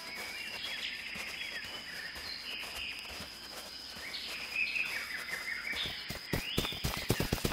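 Forest ambience: scattered bird chirps over a steady high insect drone, with a quick run of taps in the last second or so.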